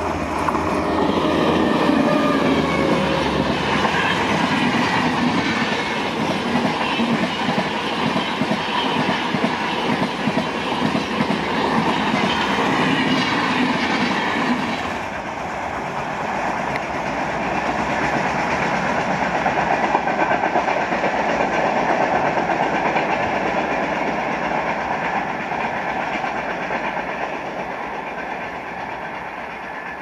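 Passenger train passing close by at speed, a steady rush and clatter of wheels over the rails. The high hiss cuts away abruptly about halfway through, and the rumble swells again before slowly fading near the end.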